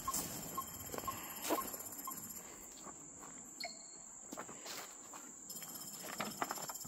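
Footsteps on gravel and wooden planks as a measuring pole is carried along, with a run of short beeps about twice a second in the first two seconds from the Moasure 2 PRO measuring tool signalling a pause to capture a point. A steady high insect drone runs underneath.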